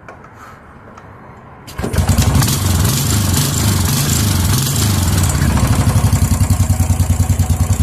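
A motor starts abruptly about two seconds in and runs loudly with a deep, steady throb that pulses evenly, about eight beats a second, near the end.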